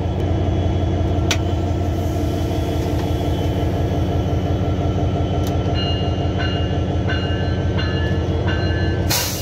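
Diesel-electric locomotive engine running steadily under way, heard from inside the cab as a deep, even drone. From about halfway through, short high-pitched tones come and go over it, and a brief hiss comes at the very end.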